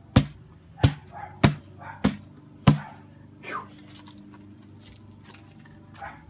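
A hand pounding a plastic lid down onto a beverage-cooler mash tun to seal it: five sharp knocks, evenly spaced, about two-thirds of a second apart.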